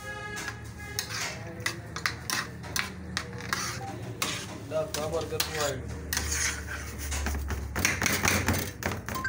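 A metal spatula scraping, tapping and clanking against a large steel pan as chicken pieces are stirred and turned, in quick irregular knocks, over a steady low hum.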